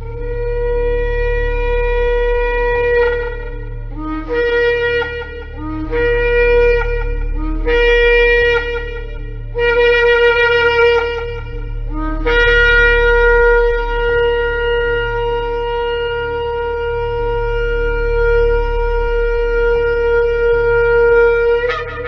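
Shofar blasts: a first note of about three seconds, then four shorter blasts that each begin on a brief lower note and jump up to the main pitch, then one long held note of about nine seconds that ends in a sharp upward break as it cuts off. A steady low hum runs underneath.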